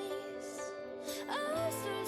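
Background music: a gentle melody over sustained notes.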